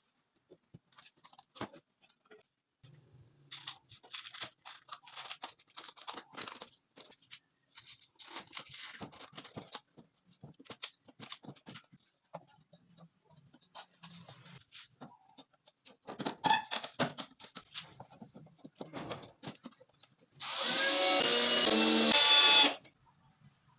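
Scattered knocks, clicks and scraping as parts are handled and fitted, then a power drill runs for about two seconds near the end.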